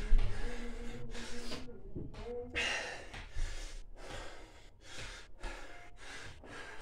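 A man breathing hard in quick, heavy gasps, about two breaths a second, from the exertion of a set of navy seal burpees; the breathing eases a little toward the end.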